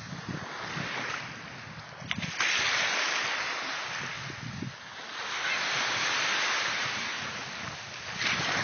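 Small waves breaking and washing over sandy shallows, the hiss swelling and fading about three times.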